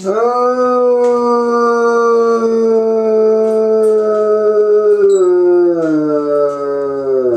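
Bloodhound howling while left alone at home: one long, loud, drawn-out howl that holds an even pitch for about five seconds, then slowly sinks and falls away steeply at the end.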